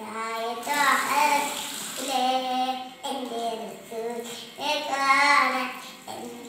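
A young boy singing a Malayalam devotional song unaccompanied, in phrases of long held notes with short breaths between them.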